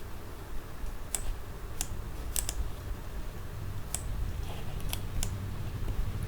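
Computer keyboard keys pressed one at a time: about seven sharp clicks at irregular intervals, over a low steady hum.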